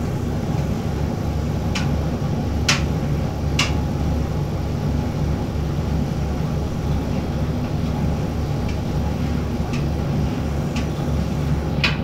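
Bosch heat-pump tumble dryer running with a duvet tumbling in the drum: a steady low hum and rumble, with scattered light clicks.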